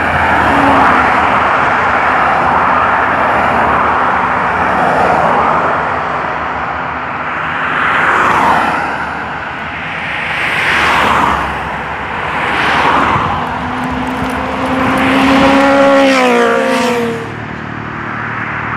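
Cars passing one after another on a road, each one's tyre and engine noise swelling and fading every couple of seconds. Near the end one vehicle passes with a hum that slides down in pitch as it goes by.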